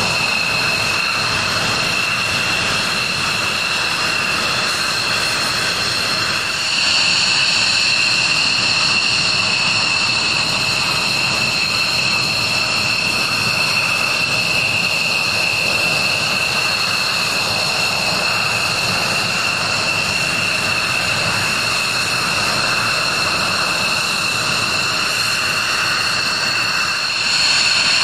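F-16 fighter jet engines running at low power, a steady high whine over a loud jet rush, as from jets taxiing. The sound gets a little louder about six seconds in and again near the end.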